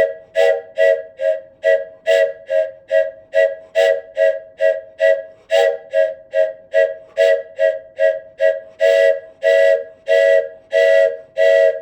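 Wooden train whistle blown in short, even toots, about two or three a second, each toot a chord of several pitches at once. Near the end the toots get longer and a little slower.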